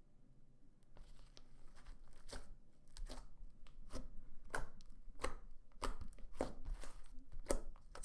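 Slime being squeezed and poked by hand, giving a run of sharp clicks and pops about twice a second that starts about a second in.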